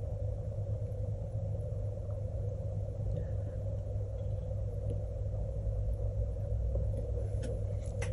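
Steady low hum with a fainter steady drone above it, and a couple of light ticks near the end.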